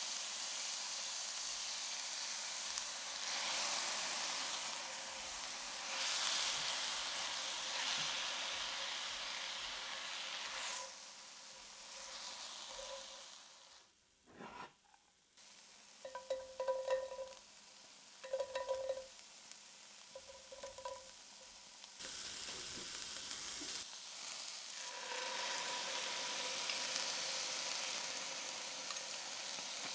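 Sliced vegetables sizzling in hot oil in a cast-iron frying pan as they are stirred. Partway through, the sizzling drops away for several seconds, broken only by a few short sounds, then comes back steadily.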